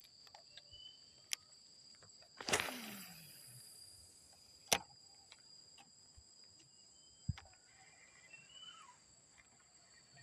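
Insects chirring in two steady high tones. Sharp clicks come every few seconds, and about two and a half seconds in there is a loud noisy burst with a low tone falling under it. Faint falling whistled calls come near the end.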